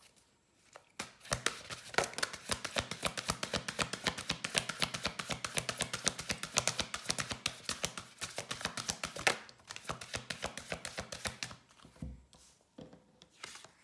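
A deck of oracle cards being shuffled by hand: a rapid, even run of light card slaps, about eight to ten a second, starting about a second in and stopping shortly before the end.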